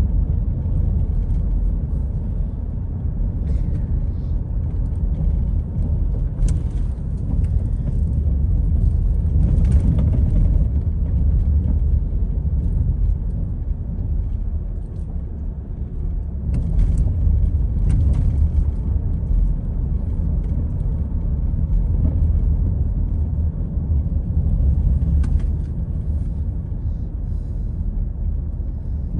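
Steady low rumble of a car being driven, road and engine noise, with a few faint clicks scattered through.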